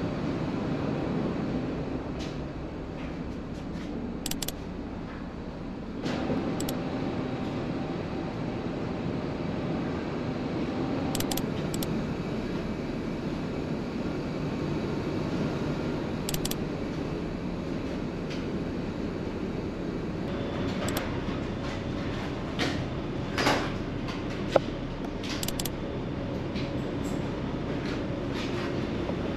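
Steady low rumble of the Ogasawara Maru ferry's engines and hull heard from inside the ship, with scattered light clicks and knocks and one sharp click late on.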